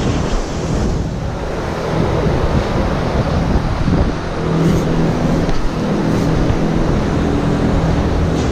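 Steady machine noise with a low, even hum.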